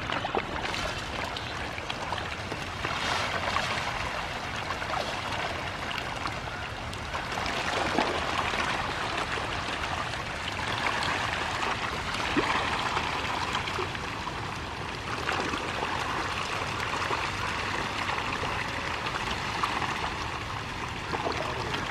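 A crowd of hybrid magur catfish feeding on floating feed at the pond surface: continuous busy splashing and slurping, with many small slaps scattered through it.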